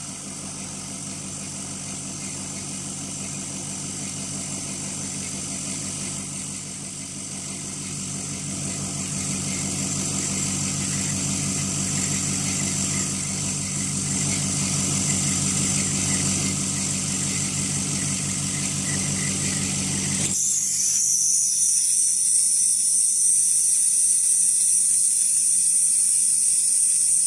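Ultrasonic homogenizer probe and vacuum pump running while degassing a liquid under vacuum: a steady machine hum with a high hiss. About twenty seconds in, the low hum cuts off suddenly and a brighter high hiss carries on.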